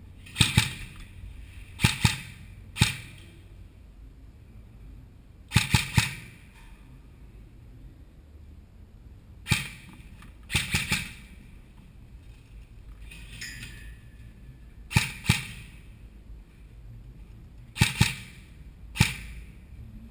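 Airsoft rifle firing single shots, sharp cracks in quick groups of two or three, each group a few seconds apart.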